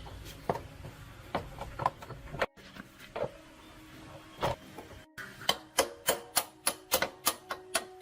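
Metal hand tools working on engine parts: scattered clicks and knocks at first, then a steady run of sharp, slightly ringing metallic taps, about three to four a second, in the second half.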